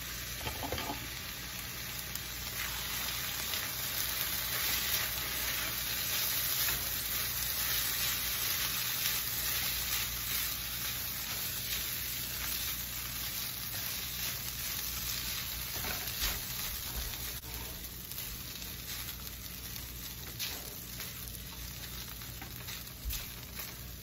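Noodles and vegetables sizzling in a hot wok as they are stir-fried and tossed with a spatula: a steady frying hiss, with a few light taps and scrapes of the spatula against the pan.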